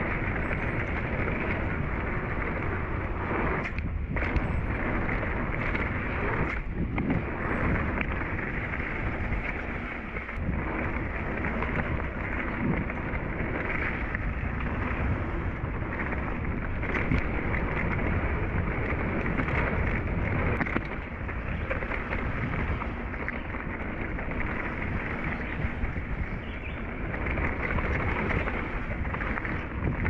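Riding noise of a Rocky Mountain Thunderbolt mountain bike on a dirt trail: tyres rolling and rumbling over the ground, with wind buffeting the camera microphone in a steady, dull roar.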